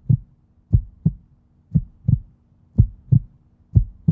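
Heartbeat sound effect: deep double thumps in a lub-dub pattern, about one pair a second, over a faint steady hum.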